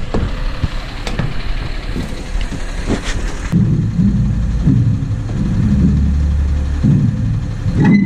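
Wind buffeting a ground-level camera's microphone, a loud, gusting low rumble, with a few sharp knocks in the first three seconds.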